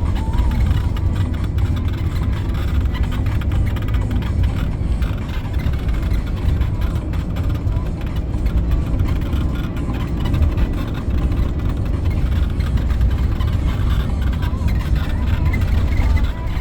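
Steady low rumble of a Carthago motorhome on the move, heard from inside, with faint brief squeaks coming and going now and then: the squeak the owner is trying to track down.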